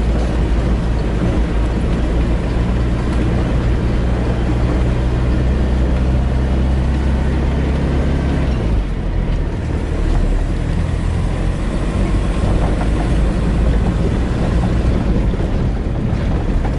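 Car engine and tyre noise, heard inside the cab while driving on an unpaved dirt road. The engine runs at a steady note, which shifts and drops a little over halfway through.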